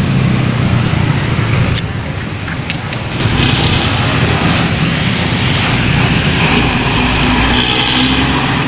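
Diesel bus engine running with a raspy, snoring ('ngorok') exhaust. It gets louder and harsher about three seconds in, as when the bus revs or pulls away.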